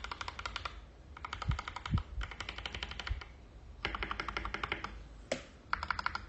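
Mechanical keyboard fitted with AKKO CS v3 switches being typed on, rapid keystroke clicks in several quick bursts with short pauses between them.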